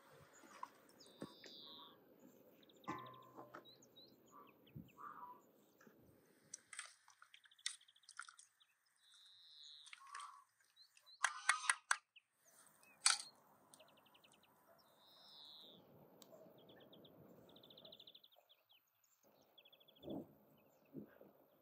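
Small birds chirping, with short falling calls and quick trills, over a faint background. A handful of sharp clicks and knocks come about halfway through.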